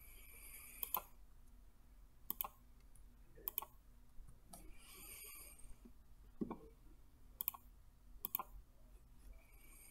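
Computer mouse clicking: about eight short, sharp, faint clicks, spaced roughly a second apart.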